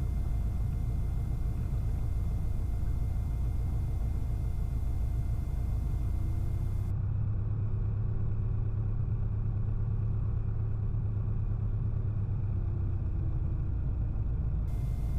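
Cessna 177RG Cardinal's four-cylinder Lycoming engine running at low taxi power, a steady low drone in the cockpit. About six seconds in the engine speeds up a little, holds there for several seconds, then eases back down near the end.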